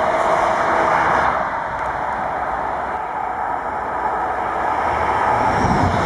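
High-speed passenger trains on the line: the running noise of a passing train drops away about a second in, then a low rumble of wheels on rails builds as another train comes close near the end.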